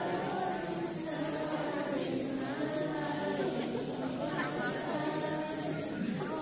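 Many voices of a crowd of women and children chanting together in a loose, unsynchronised sing-song, with overlapping talk.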